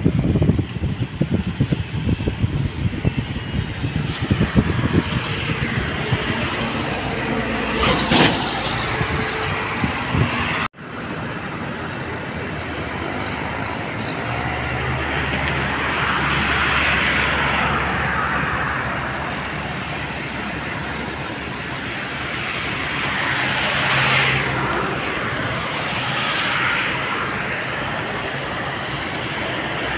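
Road traffic going past, with wind buffeting the microphone in gusts. About ten seconds in the sound cuts to a steadier traffic noise, with vehicles swelling past twice.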